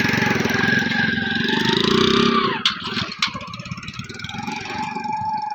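A motor vehicle engine passes close by, loudest for the first two and a half seconds and then fading away.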